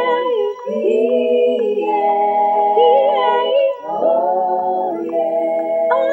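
A woman singing a cappella in long held phrases, with short breaks about half a second in and near four seconds in.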